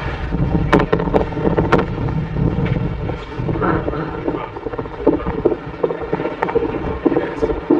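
Wind buffeting and handling noise on a moving handheld microphone: a steady low rumble with a few sharp clicks, and faint indistinct voices under it.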